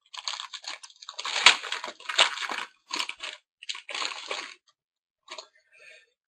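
A hockey card pack's wrapper crinkling and tearing as it is handled and opened, in a run of rustling, crackly bursts that die down after about four and a half seconds.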